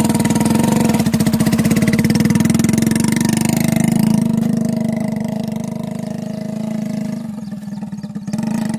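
Small commuter motorcycle's engine running and pulling a heavily loaded two-wheeled trolley, with a steady, fast exhaust beat. It grows fainter after about four seconds, then comes back up near the end.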